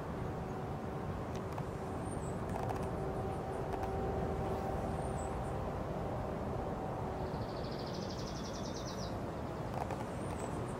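Outdoor background noise: a steady low rumble, with a faint even hum that fades out about three-quarters of the way through. Near the end comes a short, fast high trill, and there are a few faint high chirps and light clicks.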